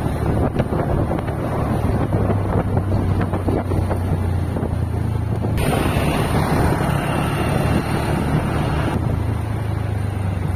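Steady engine hum of the moving vehicle carrying the camera, with wind rushing over the microphone; the wind hiss grows louder from about five and a half to nine seconds in.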